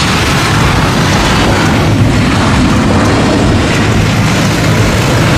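Jet engines of a Boeing 737 airliner touching down and rolling out on the runway: a loud, steady roar with a deep rumble underneath.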